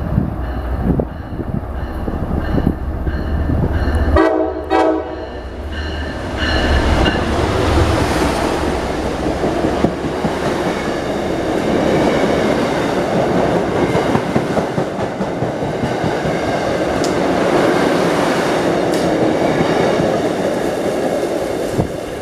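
MBTA trains: a steady low engine hum, then a short horn blast about four seconds in, followed by a train passing close with loud wheel-and-rail noise and clickety-clack that lasts most of the rest.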